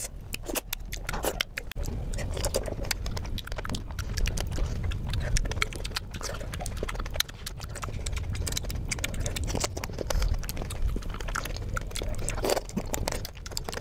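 Close-miked eating sounds of a person chewing juicy fruit (mango, grapes, strawberry): wet chewing and mouth smacking made of many sharp, crisp clicks.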